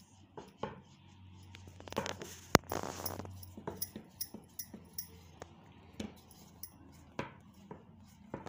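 Wooden rolling pin rolling out dough on a worktop: a run of light knocks and clacks as the pin is pushed back and forth, with a louder clack a little past two and a half seconds in.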